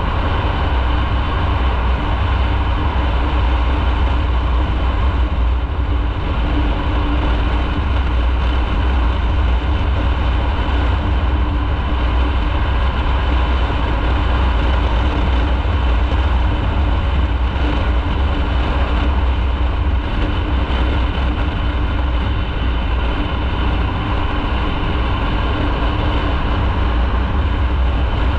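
Motorcycle running at a steady pace on the road: a constant, loud low rumble with a steady engine note.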